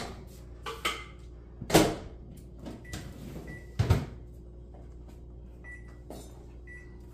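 Microwave oven keypad beeping as its buttons are pressed: about five short beeps in the second half, over a steady low hum. Two sharp knocks, one a couple of seconds in and one near the middle, are the loudest sounds.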